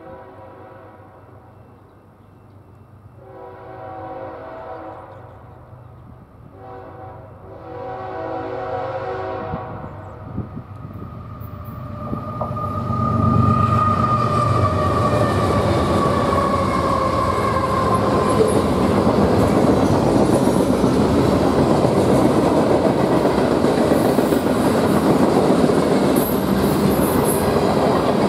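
Nathan K5HL five-chime air horn on a BNSF freight's lead locomotive, sounding long blasts that grow louder as the train approaches. From about twelve seconds in, the locomotives and freight cars pass close by, a loud steady rumble of steel wheels on the rails.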